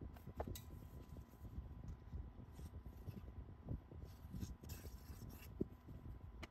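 Cardstock and patterned paper being pressed down and handled by hand on a craft mat: faint rubbing and rustling with a few soft clicks.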